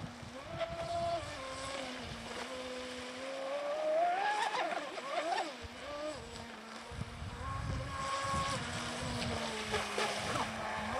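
High-pitched whine of a Cyberstorm RC speedboat's brushless electric motor on a Mamba Monster controller, 1550 kV, running at speed across the water. Its pitch rises about four seconds in and falls back, then climbs again near the end as the throttle changes, over a low rush of spray and wind.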